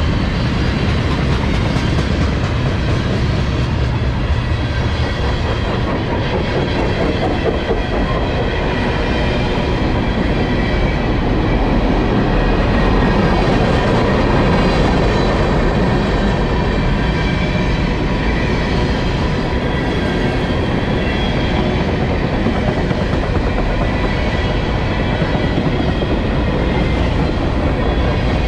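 Freight cars of a CSX manifest train rolling past at track side, a steady loud rumble with wheels clicking over the rail joints.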